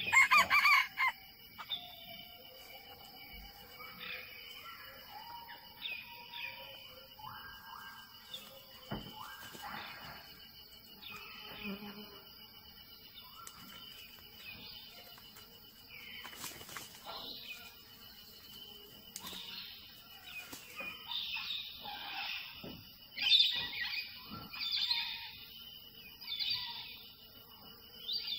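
A junglefowl rooster crows right at the start, then scattered short chirps and whistles of forest birds over a steady high insect trill. A run of louder chirps comes near the end.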